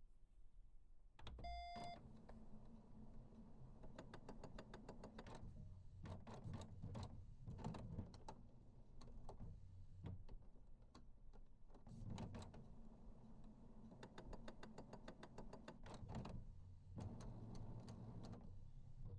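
Printer powering up: a short electronic beep about a second and a half in, then its motors whirring in spells with many clicks as the mechanism initialises, with brief lulls twice.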